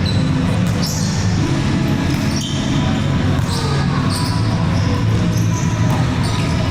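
Indoor volleyball play: the ball being struck and bouncing on a hard court, with scattered players' voices in an echoing hall.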